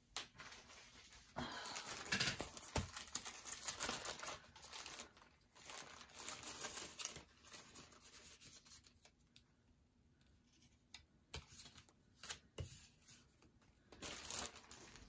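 A clear plastic bag crinkling and rustling as it is handled and searched through, in bouts for the first half and again near the end, with a few light taps of paper being set down on the cutting mat in between.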